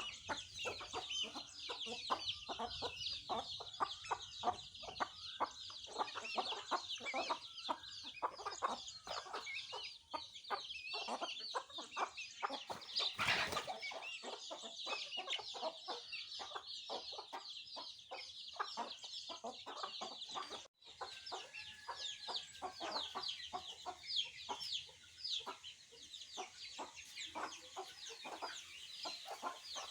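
Newly hatched chicks peeping nonstop, a dense stream of high, falling chirps, over quick low clucking from the mother hen. The sound drops out for an instant about 21 seconds in.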